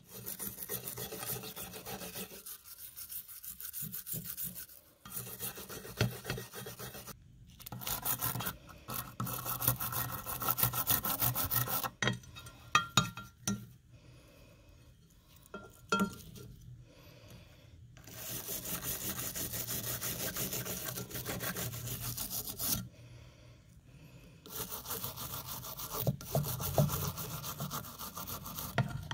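Wire brush scrubbing a rusty, wet steel knife's blade, guard and pommel in rapid back-and-forth strokes, in spells broken by short pauses.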